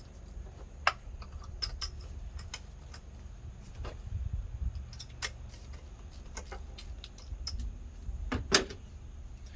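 Scattered metallic clicks and clinks of a spark plug socket and ratchet being worked and handled on the engine while the spark plugs are loosened. Two sharper clicks come about a second in and near the end, over a low rumble.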